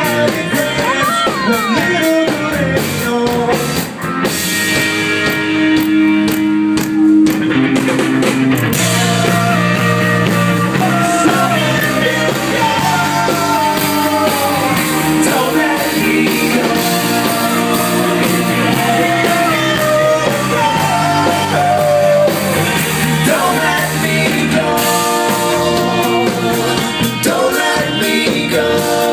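Live rock band playing a song: electric guitars and drum kit with a lead vocalist singing, loud and continuous.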